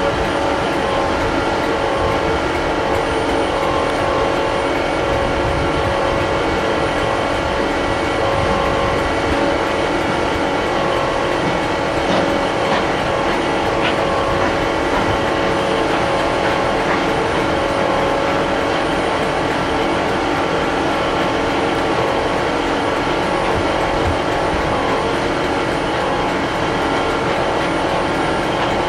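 Diesel multiple unit standing at the platform with its engines idling: a steady, unchanging hum with several held tones.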